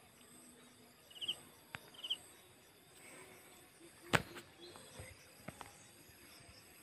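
Scattered clicks and knocks of people moving on foot through brush, with one sharper knock about four seconds in. Two short chirps come about a second apart early on, over steady high-pitched insect trilling.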